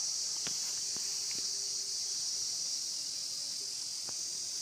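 Steady high-pitched insect chorus, a continuous shrill hum with a few faint clicks over it.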